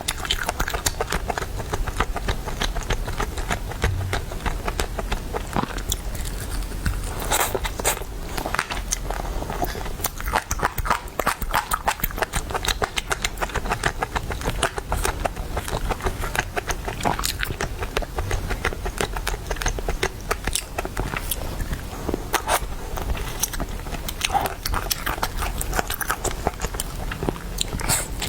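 Close-miked ASMR eating of chicken: continuous biting and chewing, a dense run of small clicks and crackles.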